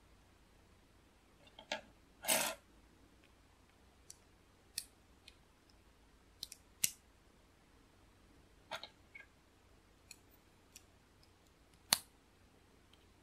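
Plastic LEGO pieces clicking and snapping as they are pressed together and handled, about a dozen scattered clicks with a brief scrape of plastic about two seconds in and a sharp snap near the end.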